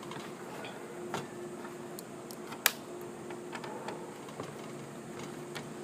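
Light clicks and taps of a dismantled induction cooker's circuit board and parts being handled, with one sharper click about halfway through, over a faint steady hum.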